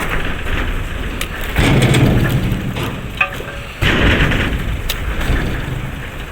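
Heavy oil palm fruit bunches tumbling out of a truck's tipped bucket in a rumbling rush of thuds and knocks. The load surges about one and a half seconds in and again about four seconds in.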